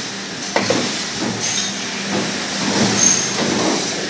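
Stamping-shop din of mechanical power presses running: a steady hum and hiss, with sharp knocks about half a second and a second and a half in, and a couple of brief high tones.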